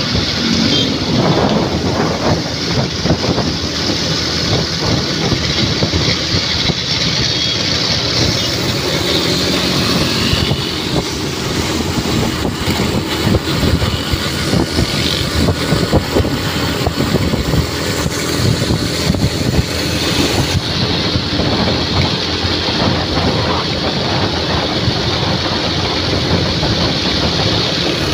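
Steady road noise from a moving vehicle in traffic, with wind fluttering on the microphone.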